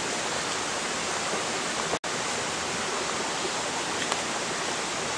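Steady rush of falling water from a waterfall, an even hiss with no change in level, broken by a momentary gap in the sound about two seconds in.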